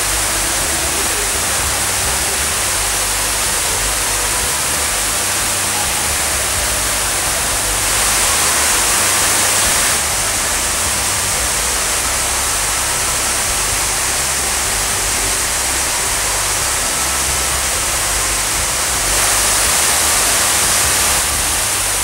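Steady rushing water, an even wash of noise like a waterfall or heavy rain. It swells a little louder twice, for about two seconds each time.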